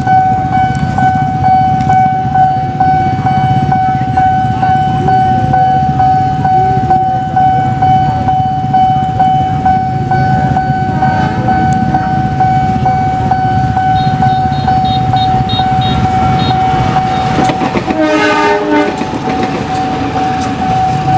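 A railroad level-crossing warning signal sounds one steady high tone over a continuous low rumble. Near the end a train horn blows once, briefly.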